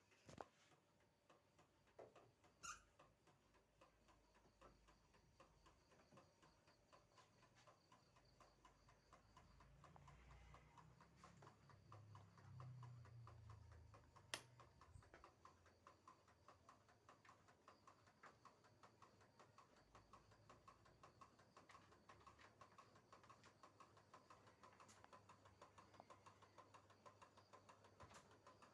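Faint industrial ceiling fan running, with a fast, light, even ticking and a low hum that swells for a few seconds near the middle; a single sharp click about halfway through.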